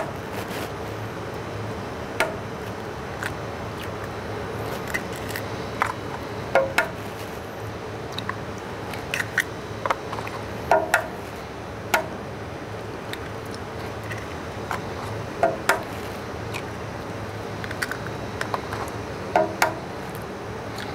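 Eggs being cracked one after another against the rim of a stainless steel pan: short sharp taps every few seconds, often in pairs, over a steady low hum.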